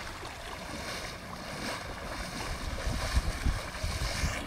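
Wind buffeting the microphone, with sea water sloshing and splashing around a man's legs as he wades out of the shallows; the splashing grows louder in the second half.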